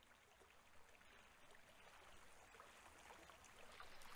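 Faint babbling of a shallow creek flowing over rocks, slowly growing louder, with a few light ticks.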